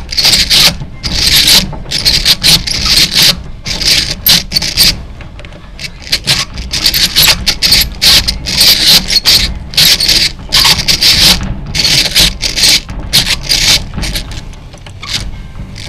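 Millers Falls No. 77 eggbeater hand drill being cranked, its bit cutting in a run of uneven bursts, each about a second or less, with short pauses between.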